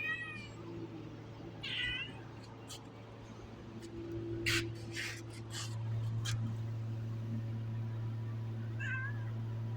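A cat meowing three times, short calls at the start, about two seconds in and near the end, over a steady low hum that gets louder about six seconds in.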